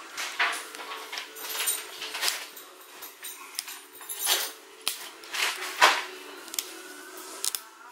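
Fine metal tweezers and a plastic pry pick scraping and clicking against a laptop's plastic screen bezel in irregular short scratchy bursts as it is prised off its adhesive tape, the loudest scrape about six seconds in.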